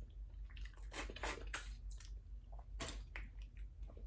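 Close-miked wet chewing and mouth smacks of boiled seafood in sauce, a handful of irregular squelching bites over a faint low hum.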